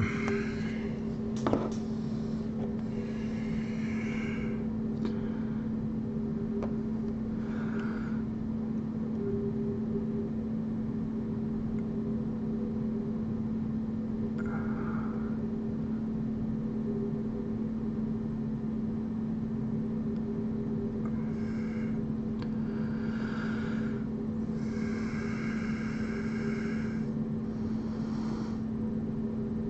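A steady machine hum holding one low tone, with a single click about a second and a half in and a few faint, brief sounds later.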